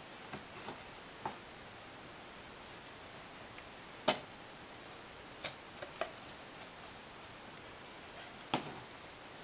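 Stiff card panels of a pink bollworm delta trap being folded and creased by hand, giving a series of short sharp clicks and snaps with light rustling. The loudest snap comes about four seconds in, over faint steady room hiss.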